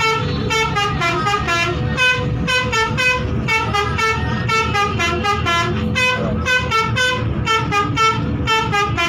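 Basuri musical bus horn playing a fast melody of short notes that step up and down in pitch, with a low rumble underneath.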